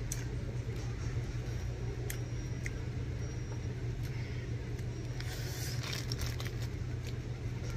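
Steady low hum of the store room, with a few sharp clicks and a brief rustle of a plastic food wrapper about five to six seconds in, as a bagel is held and eaten from it.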